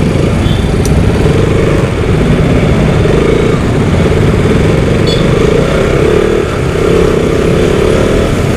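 Single-cylinder engine of a KTM RC sport bike running as the bike pulls away from a stop and rides on through traffic.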